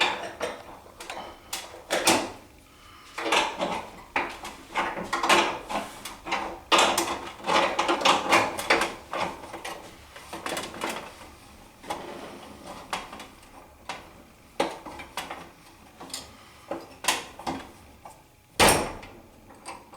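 Irregular metallic clinks, clicks and rattles of a spanner being picked up and worked on a nut, with one louder knock near the end.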